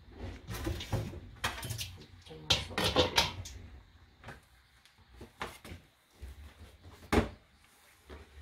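Kitchen handling sounds at a stainless steel sink: a plastic cutting board and utensils knocking and clattering in separate short knocks, with a dense cluster about two to three seconds in and one sharp knock about seven seconds in.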